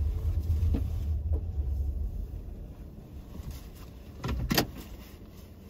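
Low rumble of a car moving slowly, heard from inside the cabin, fading as it comes to a stop about two seconds in. A short burst of noise follows about four and a half seconds in.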